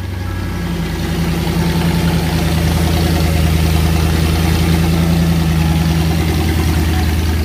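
Lamborghini Murcielago's V12 engine idling steadily, with an even rapid pulsing.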